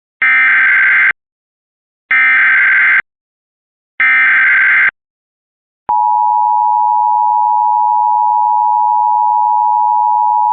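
Emergency Alert System SAME header: three buzzy digital data bursts, each just under a second, about a second apart, carrying the coded alert for receiving equipment. After a click about six seconds in, the steady EAS attention tone begins.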